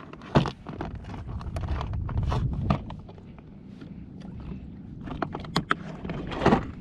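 Plastic kayak on choppy open water: a steady low rumble of wind and water, with irregular sharp knocks, slaps and clicks, the loudest about half a second in and again near the end.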